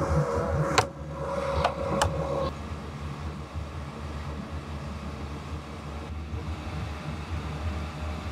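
Suzuki outboard engine idling steadily shortly after starting. A steady tone sounds over it for the first couple of seconds and stops, with two sharp clicks.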